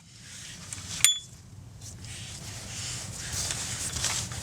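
One sharp metallic clink with a brief ring about a second in, amid quiet handling and rustling as the undercover retaining clips are refitted; a steady low hum runs underneath.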